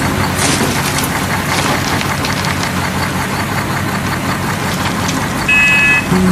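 Engine sound effect of a heavy diesel machine running at a steady, knocking idle, laid over silent plastic toy machinery. A brief high horn-like tone sounds about five and a half seconds in.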